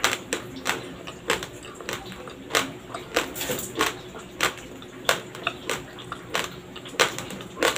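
Raw, uncooked white Dinurado rice grains crunched between the teeth close to the microphone: a run of sharp, irregular crunches, about one or two a second.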